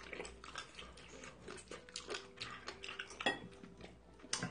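Chopsticks clicking and tapping faintly against dishes during a meal, a scattering of light irregular taps with a couple of sharper clicks late on.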